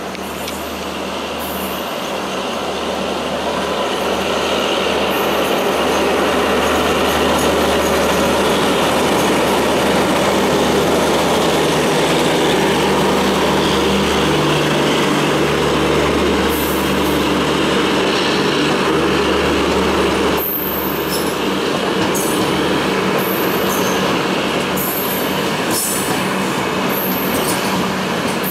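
Indian Railways WDM-3D diesel locomotive with its train of double-decker coaches passing close by on the adjacent track: a steady low diesel hum and the rumble of wheels on rail, growing louder over the first several seconds. In the latter part, short high wheel squeals and clicks sound over the rolling coaches.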